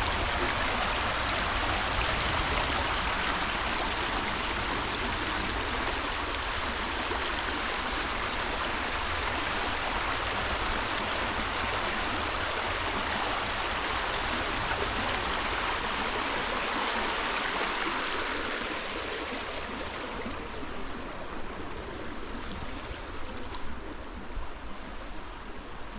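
Creek water rushing steadily, growing quieter about three-quarters of the way through.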